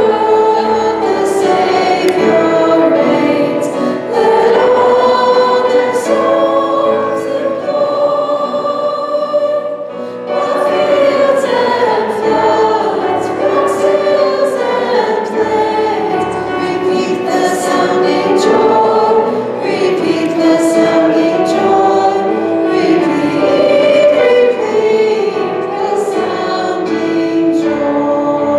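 Three women singing a church song together into hand-held microphones, with a brief break between phrases about ten seconds in.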